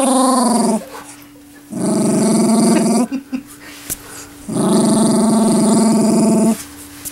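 Small black-and-tan dog growling in three long, drawn-out growls of a second or two each, with short pauses between: a displeased protest at the camera held close to her face.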